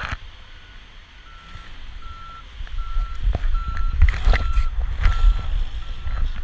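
A vehicle's reversing alarm beeping: a single-pitch beep repeated evenly, about one every three-quarters of a second. Underneath runs low rumbling and rubbing from the camera strapped on the dog's back as he moves, louder in the second half.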